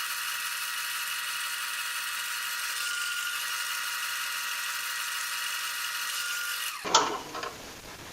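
Wood lathe running steadily with a whir and several steady high tones, spinning the pencil blank. It cuts off suddenly near the end, followed by a sharp knock and a couple of light clicks.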